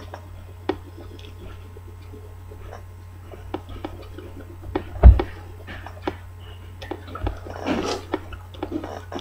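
Scattered small clicks and knocks of things being handled close to the microphone, with one loud bump about five seconds in and a short rustling burst near the end. A steady low electrical hum runs underneath.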